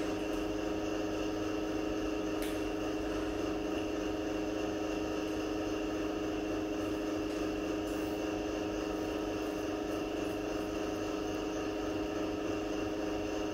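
Steady machine hum with a constant low tone, unchanging throughout, and a faint tick about two and a half seconds in.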